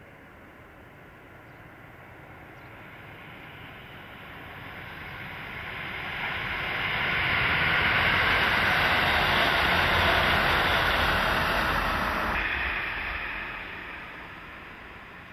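Diesel limited express train passing at speed: the run of engines and wheels on rail swells over several seconds and is loudest from about 7 to 12 seconds in. It then drops suddenly to a fainter, fading sound of another train.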